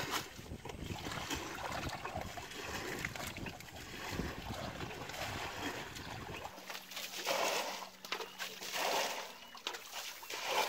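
Shallow muddy canal water splashing and sloshing irregularly around a person wading and pulling up water weeds by hand.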